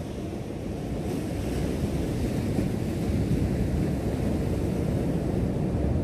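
Ocean surf washing over the rocks, mixed with wind rumbling on the microphone; the wash builds up a little over the first couple of seconds.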